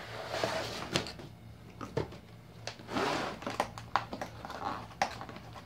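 Cardboard laptop box being handled while its sealed end flap is pried at by hand: rustling and scraping of cardboard with a few sharp clicks, louder about three seconds in.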